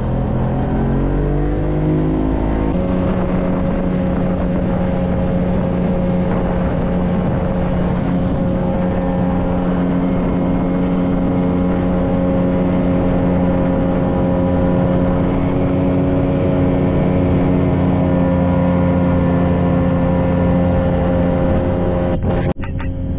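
Small boat's outboard motor revving up over the first few seconds as the boat speeds up, then running steady at speed.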